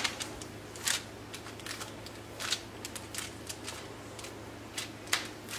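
Oiled hands pressing and smoothing soft pizza dough flat on parchment paper, with irregular soft rustles and crinkles of the paper, loudest about a second in, midway and near the end. A faint steady hum runs underneath.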